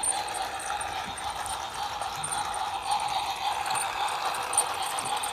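Battery-powered toy steam locomotive running steadily around a plastic track loop, its small motor and wheels making an even whir with light rattling.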